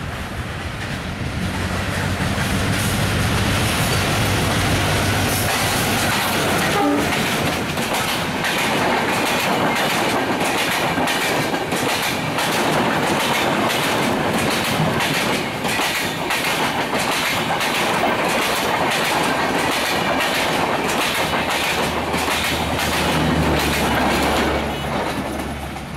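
Diesel locomotive running as it passes close, then a long train of passenger coaches rolling by, their wheels clicking steadily over the rail joints. Near the end the power car passes with a low, steady generator hum.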